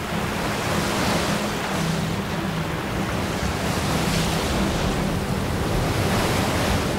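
Flash-flood water rushing and churning over rocks in heavy rain, a loud steady wash of water noise, with a low steady tone underneath.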